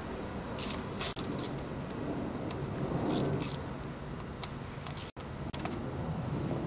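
Metal clinks and light rattles, a few sharp ones spread irregularly, as a 7 mm socket wrench works the three bolts off a Harley-Davidson starter solenoid cap.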